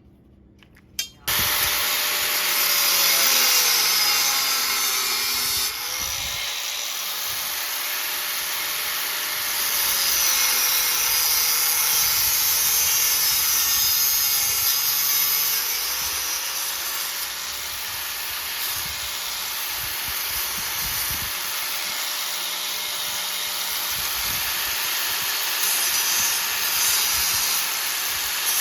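An electric power tool starts up about a second in and keeps cutting, with a loud hiss. Its motor pitch sags several times as it is loaded, then recovers.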